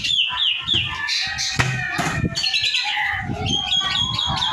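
Asian pied starling singing: a busy, varied run of whistles, chatter and squawks, opening with a few quick falling whistles.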